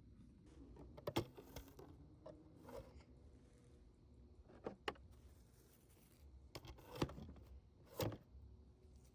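Plastic toy figures and toy barn pieces being handled: scattered light clicks, knocks and scrapes over a quiet room hum.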